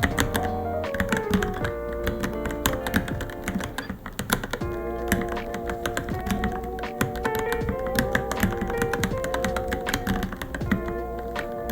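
Rapid, irregular typing on a Varmilo Minilo mechanical keyboard, many keystrokes a second, over background music.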